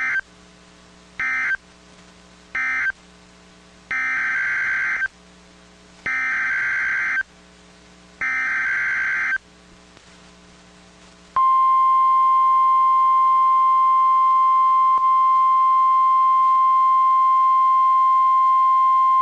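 NOAA Weather Radio SAME data bursts: three short end-of-message bursts about a second and a quarter apart close one alert, then three longer header bursts of about a second each open the next blizzard warning. About eleven seconds in, the steady 1050 Hz warning alarm tone starts and runs on.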